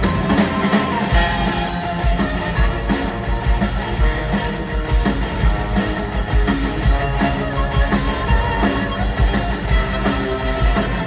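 Live rock band playing in a sound check, with electric guitar over bass and a drum kit keeping a steady beat.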